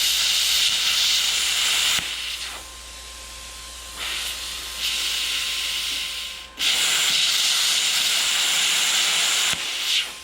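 Plasma cutter firing and cutting a hole through metal: a loud, steady hiss of the arc and air jet. It comes in runs, easing off about 2 s in, picking up again around 4 s, loud once more from about 6.5 s, and stopping shortly before the end.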